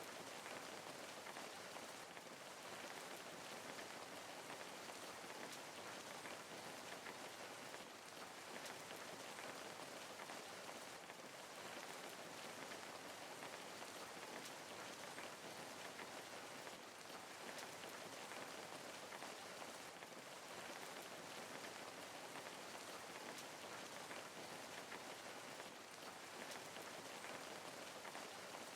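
Steady rain falling, an even hiss of many fine drops, soft and unchanging.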